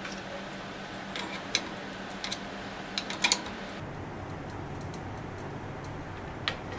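Light metallic clicks and taps as a wrench is fitted and worked on a bicycle's bottom bracket: several in the first half and one more near the end, over a faint steady hum.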